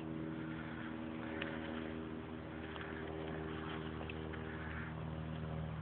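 A steady low hum from a motor running at a constant speed, with a few faint clicks.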